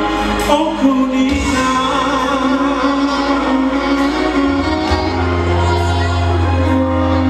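Male singer singing into a microphone over live band accompaniment, with a strong bass line coming in about halfway through.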